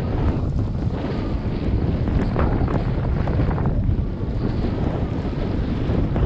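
Wind buffeting a helmet-mounted GoPro's microphone in a snowstorm: a steady, heavy low rumble with a few faint short ticks.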